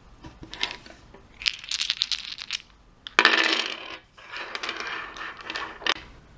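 Small letter dice clattering onto a tabletop and rattling as they tumble, in several bursts of sharp clicks. The loudest clatter comes about three seconds in.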